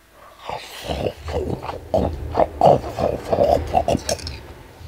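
A person slurping and chewing a mouthful of soggy chow mein noodles: a run of irregular wet mouth noises.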